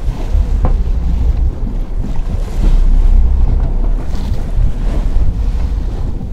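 Wind buffeting the microphone over the rush and splash of churning water in the wake of a moving boat.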